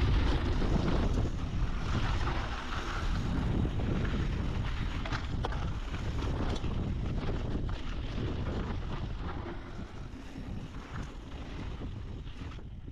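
Mountain bike riding fast down a dirt trail: wind buffets the handlebar-mounted camera's microphone over a steady tyre rumble, with scattered knocks and rattles from the bike on rough ground. It grows gradually quieter toward the end.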